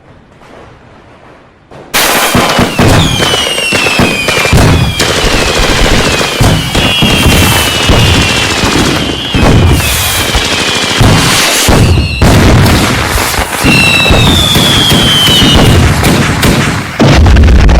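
Fireworks going off in a dense barrage of bangs and crackles, starting suddenly about two seconds in, with several whistles falling in pitch. A heavier, deeper rumble of blasts joins near the end.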